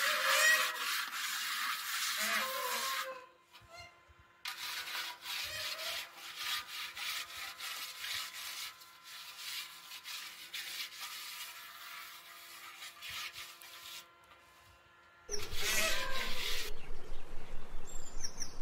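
Hands rubbing and scraping damp earth over the rim and lid of a clay pot: a run of gritty scrapes with short pauses. Near the end comes a louder, rapidly pulsing rustle.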